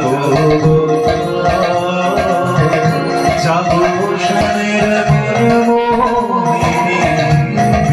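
Live bhajan: a male singer through a PA system, accompanied by hand drums playing a steady rhythm and sustained keyboard tones.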